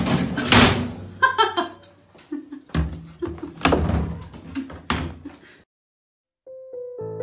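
Banging and clattering of a top-loading washing machine's plastic lid and drum as a pet scrambles in it, a run of sharp knocks and slams. Near the end, after a short gap, a piano tune starts.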